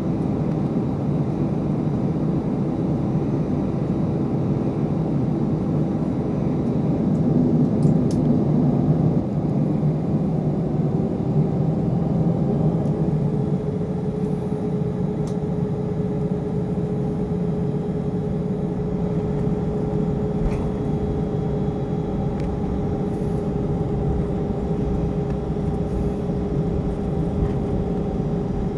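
Airbus A319's jet engines running at low thrust as it taxis, heard inside the cabin: a steady rumble under a hum that steps up a little in pitch about ten seconds in.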